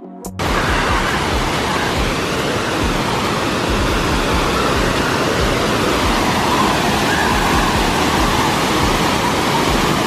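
A waterfall's rush of falling water: a loud, steady, even roar that cuts in suddenly just after the start.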